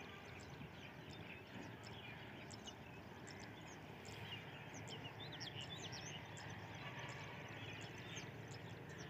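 Birds chirping: many short, scattered high calls over a faint, steady low background hum.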